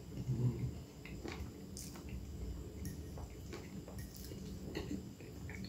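Close-up chewing of a soft, creamy mouthful of instant noodles in corn cream, with small wet mouth clicks and smacks throughout. A brief low hum about half a second in is the loudest moment.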